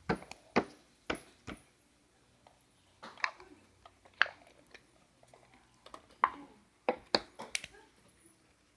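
Slime being handled, squeezed and stretched, making irregular sticky clicks and pops.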